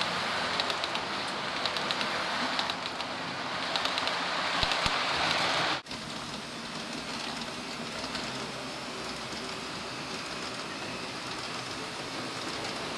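HO-scale model train running on the layout's track: a steady rushing hiss of motor and wheels with light clicks. About six seconds in, the sound breaks off and drops to a quieter steady hiss.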